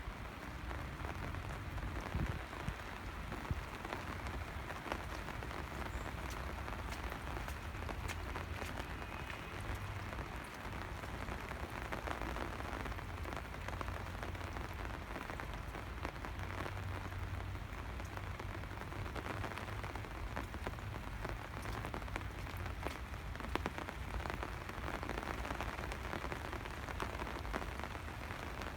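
Steady rain falling, a continuous hiss peppered with many individual drops ticking on surfaces, over a low rumble.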